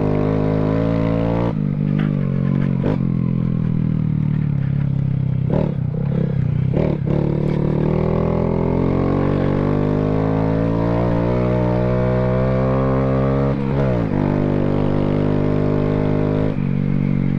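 Honda Grom's single-cylinder four-stroke engine running under way, its note climbing gradually through the middle and changing abruptly about a second and a half in and again a few seconds before the end. A few short knocks come from the bike along the way.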